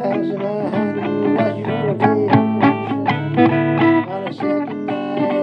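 Blues recording playing back, led by guitar, with notes bending in pitch.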